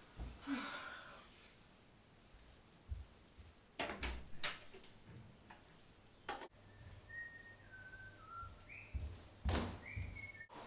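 Someone whistling a few short notes, stepping down and then jumping higher, with several sharp knocks and a door clunking as it is handled.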